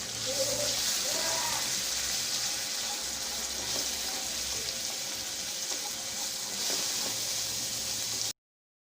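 Ground spices and ginger garlic paste frying in hot ghee in a pan, a steady sizzle that cuts off abruptly near the end.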